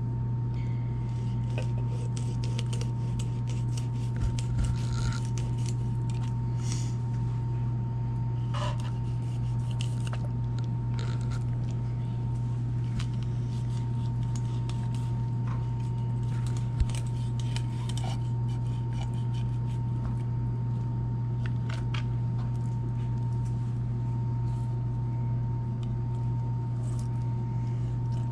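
A blade cutting a whole steelhead on a plastic cutting board: scattered soft scrapes, squishes and clicks, with a sharp click about two-thirds of the way through. Under it runs a steady low hum.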